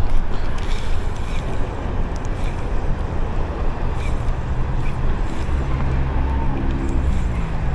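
Wind buffeting the microphone as a steady low rumble, joined about five and a half seconds in by a low steady hum.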